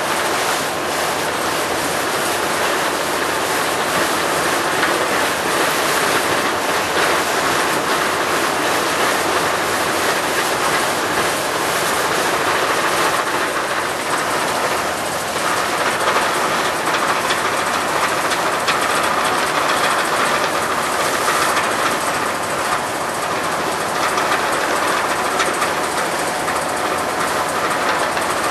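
Steady clattering, rushing noise of a boat's diesel engine heard from on deck, mixed with wind and water noise.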